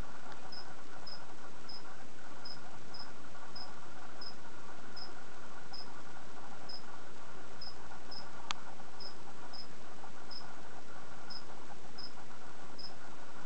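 A cricket chirping, short high chirps a little faster than one a second and somewhat unevenly spaced, over a steady background hiss. One sharp click about eight and a half seconds in.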